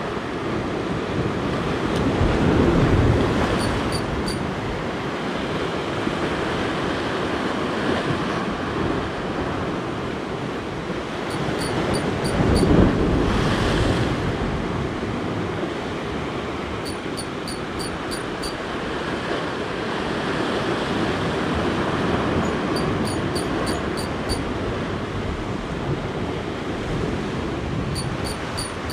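Sea surf washing and breaking on a rocky shore, with wind blowing on the microphone; the wash swells loudest about three seconds in and again around thirteen seconds. Short runs of faint high chirps come and go over it several times.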